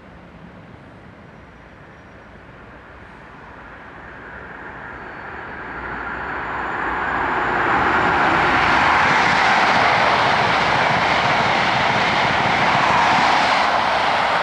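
Class 37 diesel locomotives' English Electric V12 engines powering up as the train pulls away. The noise grows much louder over about four seconds, then holds steady and loud.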